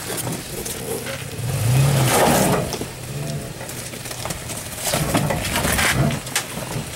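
Toyota Tacoma pickup's engine revving in short bursts as it crawls over boulders, loudest about two seconds in, with scattered clicks and knocks of tyres and rock.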